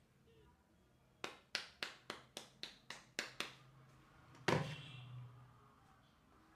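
Barber's hands striking rhythmically during a head massage: a quick run of about nine sharp taps, roughly four a second, then one louder, heavier slap about four and a half seconds in.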